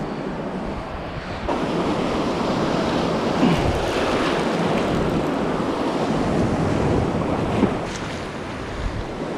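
Surf breaking on a sandy beach, a steady wash of waves that swells about a second and a half in, with wind buffeting the microphone.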